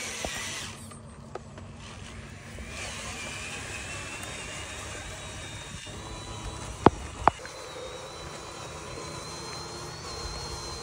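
Small electric motors and gearboxes of radio-controlled construction models whining as they drive and dig, a thin high whine over a steady low hum. Two sharp knocks come about seven seconds in, half a second apart.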